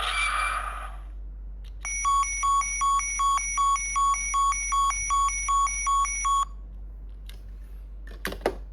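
Electronic sound effects from a DX Ultraman Trigger GUTS Sparklence transformation toy: a sound-effect burst that ends about a second in, then a loop of rapid electronic beeps, about two and a half a second, that stops after about four seconds. A few plastic clicks follow near the end.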